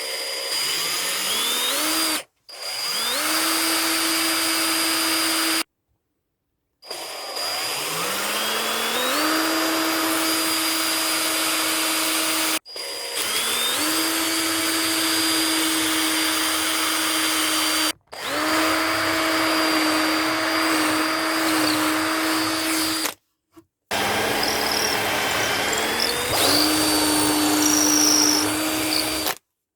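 Small electric power tool motor spinning up with a rising whine, then running at a steady speed. It comes in about six stretches, each starting and stopping abruptly.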